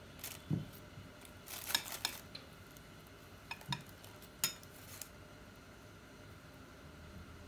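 Metal spoon clinking and scraping against a glass bowl while stirring thick oobleck, with scattered sharp taps over the first five seconds and a couple of dull knocks.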